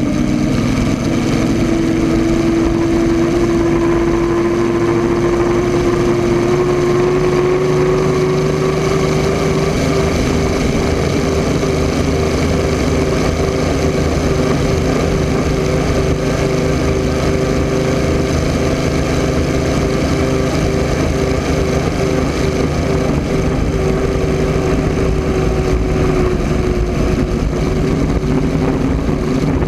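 Rolls-Royce Griffon V12 aircraft engine of the 1980 Miss Budweiser unlimited hydroplane running at speed, heard from onboard over the rush of wind and water. Its pitch climbs slowly over the first ten seconds or so, then holds steady.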